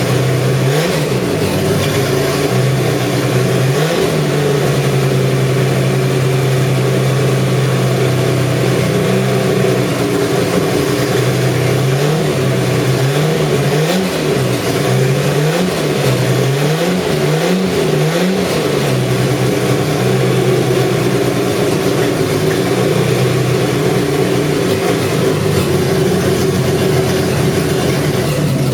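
Chevrolet 250 inline-six running on an engine stand, blipped up in short revs several times, a cluster of them in the middle, then settling to a steady idle. It is the engine's first run after being bought used, still burning oil out of its cylinders.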